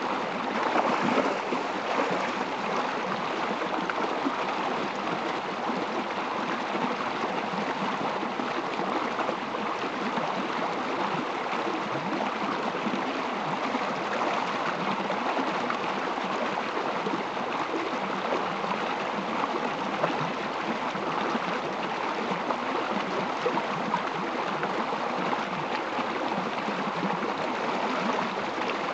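Shallow creek water running steadily over gravel and stones.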